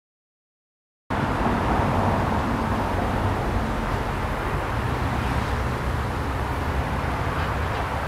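Steady low rumble of distant road traffic, starting suddenly about a second in after silence.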